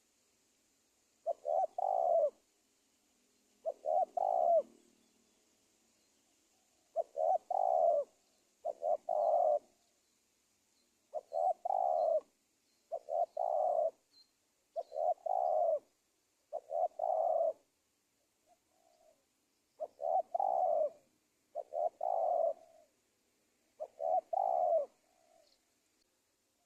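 Spotted dove (tekukur) cooing a lure call: a series of about eleven short coo phrases, each about a second long with a stuttering start, repeated every second or two.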